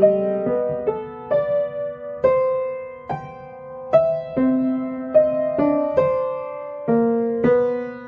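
Background piano music: a slow, gentle melody of single notes, each struck and then fading, about one or two a second.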